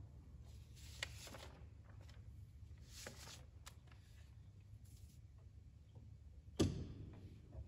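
Sheets of music paper rustling as the organist turns pages, in two short spells, with small clicks. About six and a half seconds in comes a single sharp knock as a pipe organ's drawstop knobs are pulled to change registration. A low steady hum lies underneath.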